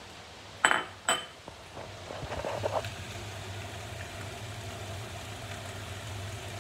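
Two sharp metallic clinks of cookware on the hob, about half a second apart, then a short soft clatter as spiralised courgette is handled in a frying pan, over a steady low hum.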